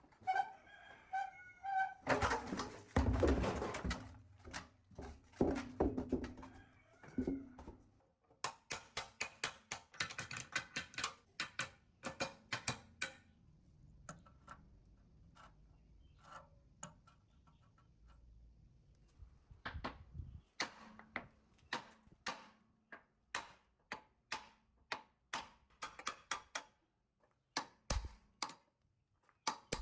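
Hand work on metal parts: a short squeak, then a few seconds of scraping and rattling, followed by a long run of sharp knocks and taps, several a second.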